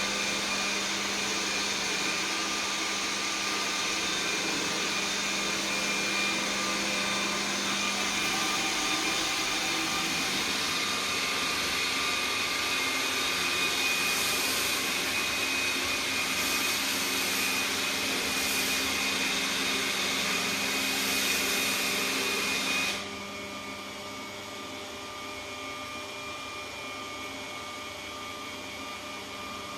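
Roomba S9+ robot vacuum running with a steady motor whine. About three-quarters of the way in, the louder part of the noise cuts off suddenly, leaving a quieter, steady hum.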